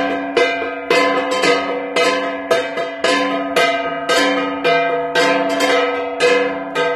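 Gangsa, the flat bronze gong of the Igorot, struck in a steady pattong dance rhythm, about two strikes a second. Each stroke rings on with a bright metallic tone.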